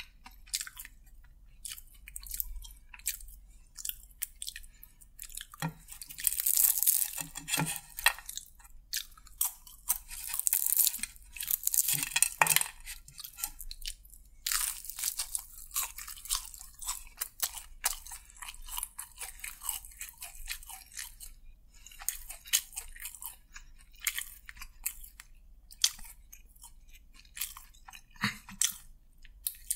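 Close-miked chewing and crunching of KFC crispy fried chicken: a run of crackling bites, with denser spells of crunching about six, eleven and fifteen seconds in.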